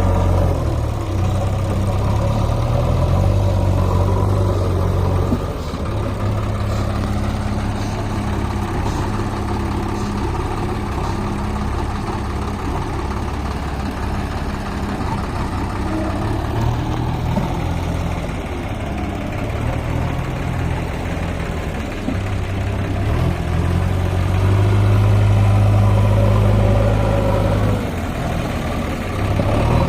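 Diesel engine of a backhoe loader at work loading mud, running at a steady idle that rises and falls in speed. It gets louder and higher for a few seconds near the end.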